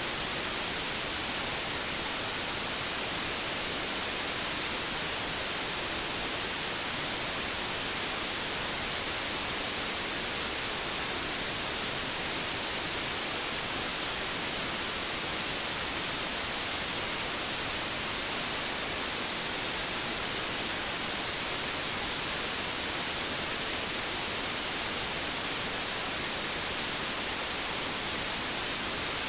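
Steady white noise: an even, unchanging hiss, brightest in the high range, with no tones or breaks.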